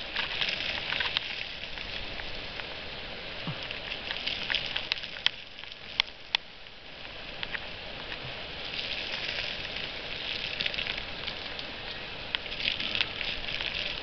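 Loose flaky rock crackling and crumbling under a bare hand, with scattered sharp ticks of small pieces clicking together, as a heteromorph ammonite fossil is pried out of the bank.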